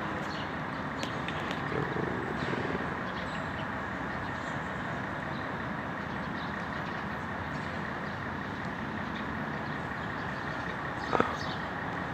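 Steady city traffic noise, a constant rumble of passing vehicles, with one brief sharp knock about eleven seconds in.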